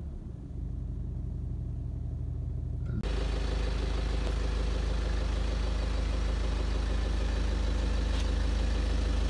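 BMW 118d's N47 2.0-litre four-cylinder common-rail diesel idling steadily. It is first heard as a muffled low hum from inside the cabin, then about three seconds in switches abruptly to the louder, clearer idle at the exhaust tailpipe.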